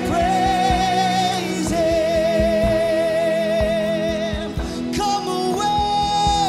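Christian worship song with a band: a singer holds long notes with vibrato, breaking briefly twice, over sustained instrumental chords and a steady drum beat.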